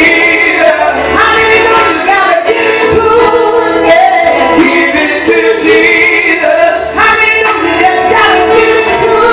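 A woman singing a gospel song through a handheld microphone, amplified, with tambourine jingles shaken along with her.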